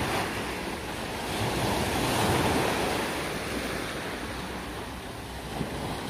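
Small sea waves breaking and washing up a pebble beach, the surf swelling about two seconds in and then easing off.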